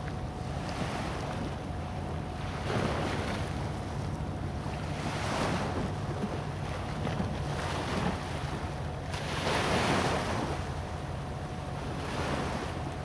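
Small waves washing on the rocky shoreline, one swell every two to three seconds, over a steady low rumble of wind on the microphone.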